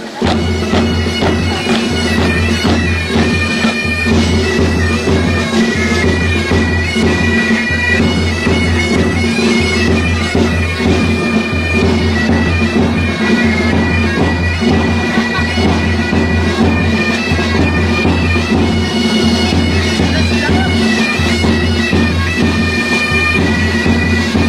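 Bagpipes playing a tune: a stepping high melody over steady, unchanging drones, starting abruptly at the outset.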